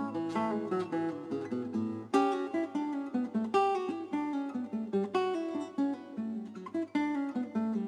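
Acoustic guitar music: a run of plucked notes over a held low bass note.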